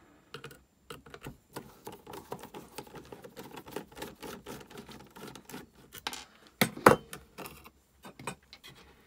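Small irregular clicks and scrapes of a screwdriver loosening the two small screws that hold a Concept2 PM3 monitor's circuit board, with metal against metal and plastic. A louder double knock comes about two-thirds of the way in.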